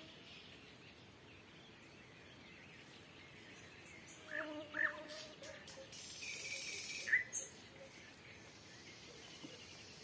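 Nightingale song over faint evening ambience: from about four seconds in, two quick whistled notes, then a brief rapid chattering phrase and a sharp high note near seven seconds.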